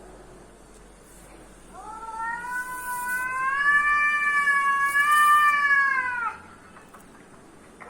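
A cat's single long, drawn-out yowl. It starts about two seconds in, rises in pitch, holds for about four seconds and falls away at the end.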